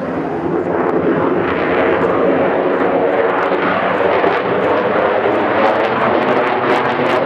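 Loud jet roar from an F-35's single Pratt & Whitney F135 afterburning turbofan during a low display pass, swelling slightly near the start, with sharp crackling in the second half.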